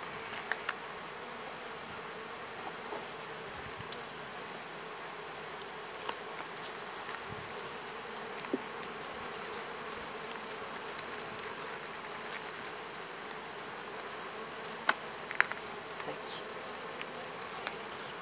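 Honeybees from an opened hive buzzing steadily in a continuous hum. A few short sharp clicks come from the wooden frames being handled, the loudest a pair about 15 seconds in.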